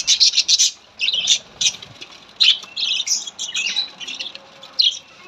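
Budgerigars chattering and squawking: a rapid, irregular run of short, harsh calls from several birds.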